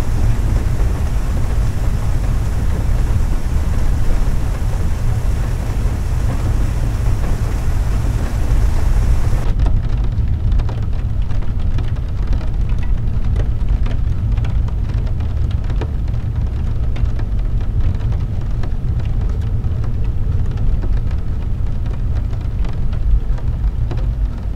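Heavy rain on a car's windshield and roof, heard from inside the cabin over a steady low rumble. About ten seconds in, the high hiss cuts off and the separate taps of drops hitting the glass stand out.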